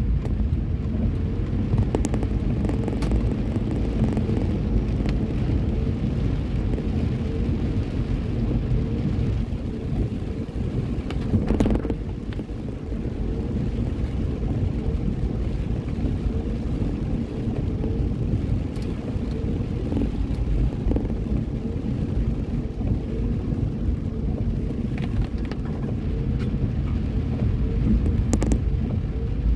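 Steady low rumble of a car driving on wet pavement, heard from inside the cabin.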